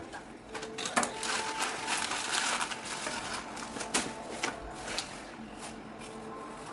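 Fish being cut by hand: a few sharp knocks of the knife on the cutting surface amid rough scraping.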